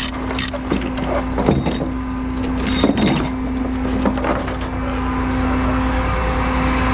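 An engine running steadily, with metallic clinks and rattles in the first few seconds that then stop, leaving only the engine.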